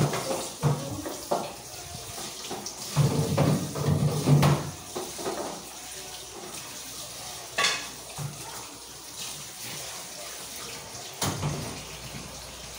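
Kitchen washing-up: dishes and utensils clinking and knocking at the sink with tap water running, with a busy cluster of knocks a few seconds in and a sharp clink about halfway through.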